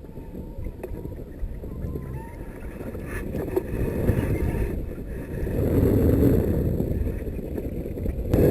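Wind buffeting the microphone: a low, uneven rumble that grows louder about halfway through.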